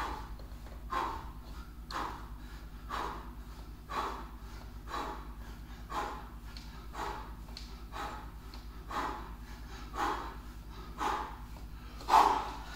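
A man breathing hard from exertion during a workout: short, forceful exhalations about once a second, with a louder one near the end.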